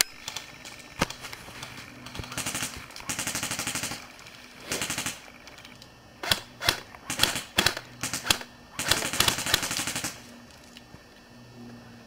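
Airsoft guns firing on full auto: a rapid, even clatter of shots in several bursts. There is a long burst about two seconds in, a short one near five seconds, then separate shots and short bursts from about six to eight seconds, and another long burst near nine to ten seconds.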